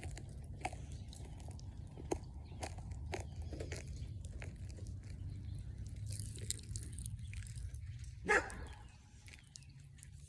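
Sour Pop Rocks popping candy crackling in the mouth: many small, irregular pops and clicks over a steady low hum, with one louder short sound about eight seconds in.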